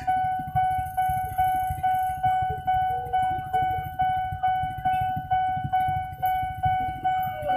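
Railway level-crossing warning bell ringing, an electronic ding repeated evenly about twice a second, signalling that a train is approaching. A low rumble of car and motorcycle engines runs underneath.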